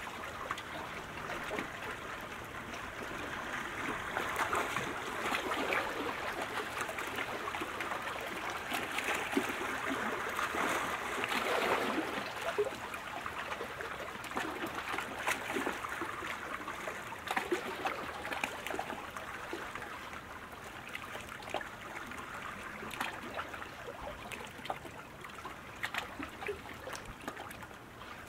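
Water splashing and rushing as racing kayak paddles cut the water, a dense, continuous wash of splashes and spatters with no steady beat.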